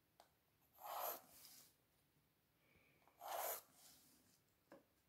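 Graphite pencil drawing light vertical construction lines along a set square: two short soft scraping strokes about a second in and again about three and a half seconds in. A few faint clicks come from the drawing instruments being shifted on the board.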